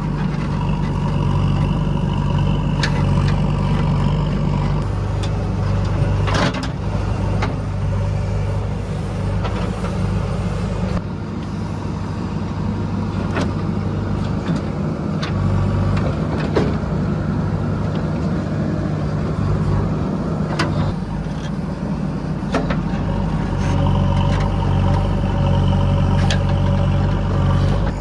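Heavy diesel engine running steadily, with several sharp clanks and knocks spread through.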